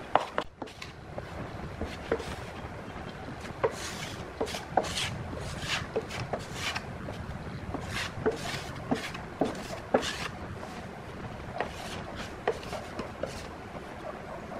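Stiff bristle paintbrush scrubbing thick black paint across the plywood top of a subwoofer cabinet: rasping strokes about one or two a second, with small knocks as the brush meets the wood.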